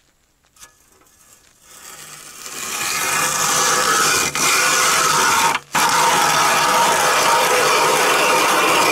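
Powered ice auger drilling through thick lake ice, about 80 cm. It starts about two seconds in and builds up as the auger bites, then runs steadily with a low hum. It cuts out briefly twice before carrying on.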